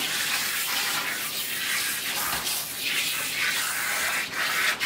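Water running from a handheld shower sprayer, rinsing a wet cat in a bathtub: a steady splashing hiss.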